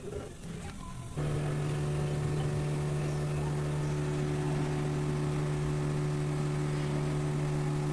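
A motor running steadily at one even pitch, switching on abruptly about a second in.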